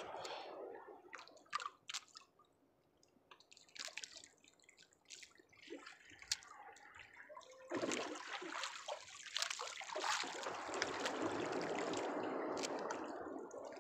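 Water sloshing and splashing close by, with scattered knocks and clicks of handling. It drops almost quiet a couple of seconds in, then a steady splashing rush sets in about eight seconds in.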